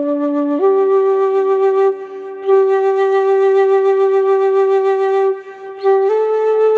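Solo flute playing a slow melody of long held notes, stepping up in pitch a few times, with short breaks between phrases.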